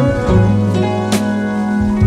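Background music led by guitar over a bass line, with a percussive hit about once a second.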